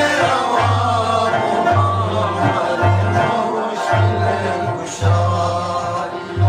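Rubab and daf frame drums playing a ginan melody: the rubab plucks a wavering tune while the dafs beat a deep, steady pulse about once a second.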